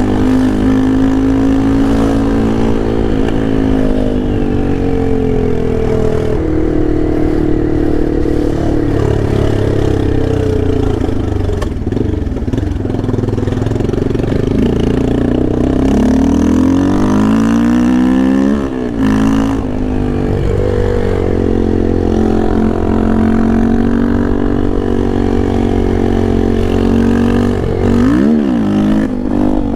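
Yamaha Lander 250 2024's single-cylinder four-stroke engine ridden hard, the engine pitch climbing under throttle and dropping through gear changes again and again. A quick rev up and sudden drop comes a little past the middle, and another near the end.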